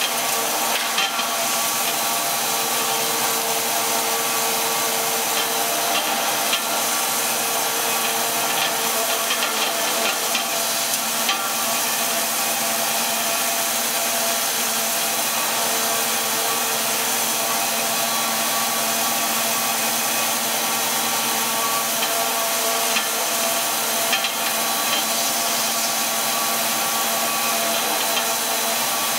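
Two-stage plastic recycling machine running steadily: a constant mechanical hiss with several steady tones held through, and a few faint ticks.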